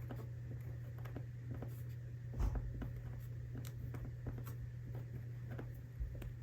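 Hands handling small items and their packaging: light scattered clicks and taps, with a louder knock about two and a half seconds in and another near the end, over a steady low hum.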